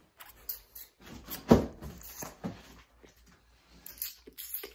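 Rustles and knocks from a phone being handled close up, with one louder thump about a second and a half in.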